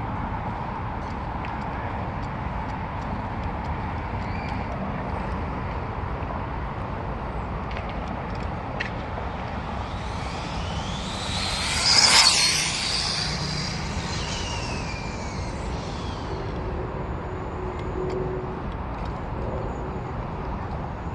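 Typhon RC buggy on an 8S battery speeding past once: a high motor and drivetrain whine that rises to its loudest about halfway through, then drops in pitch as it goes away. A steady outdoor background noise runs under it.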